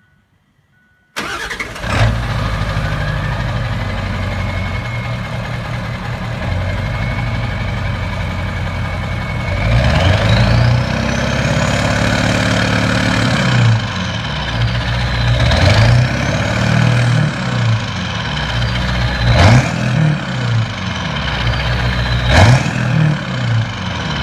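Ford Powerstroke V8 turbo-diesel in a Super Duty pickup, running and being revved several times. The turbo's whistle rises and falls as it spools. The sound cuts in suddenly about a second in.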